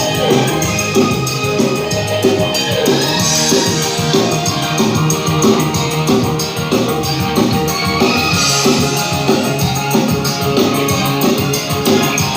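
Recorded music with a steady beat played loud through a line-array PA system during a sound check.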